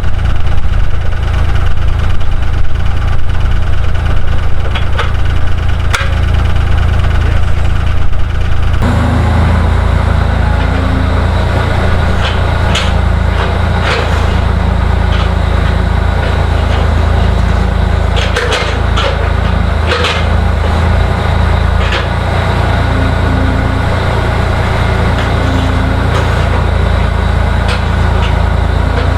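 Skid steer engine running steadily, with scattered sharp metal clanks and knocks from the machine and its attachment at work. The sound of the engine shifts abruptly about nine seconds in.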